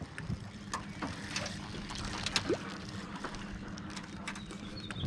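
Electric trolling motor humming steadily at a low pitch, with scattered light clicks and taps of fishing tackle being handled, and a short rising squeak about halfway through.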